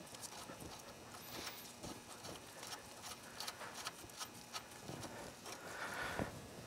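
Faint, scattered small clicks and taps of a brake-line banjo fitting and bolt being fitted and threaded by hand onto an ATV's rear brake master cylinder.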